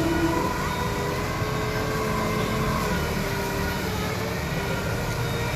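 Forklift engine running steadily, with a few steady tones over its noise.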